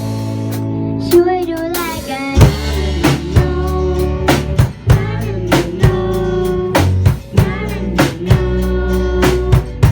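Thai pop song with a steady drum-kit beat and sustained bass, with singing over it at times.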